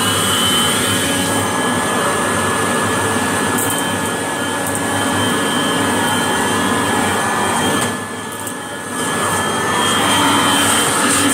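Vacuum cleaner running steadily under its motor, with a high steady whine over the rush of air; the sound drops for about a second near the end, then comes back up.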